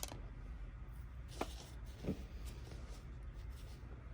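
A few faint small clicks and taps from tiny lock pins and pinning tools being handled at a Kwikset lock cylinder during rekeying. A sharp click comes right at the start, then lighter ticks about one and a half and two seconds in.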